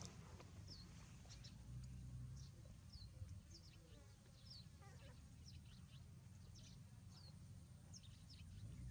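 Faint, short high-pitched chirps, several each second at irregular intervals, each sweeping quickly downward, over a low steady rumble.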